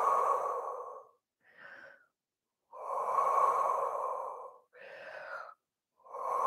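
A woman breathing slowly and audibly while holding a deep stretch: long exhalations about every three seconds, with shorter, quieter inhalations between them.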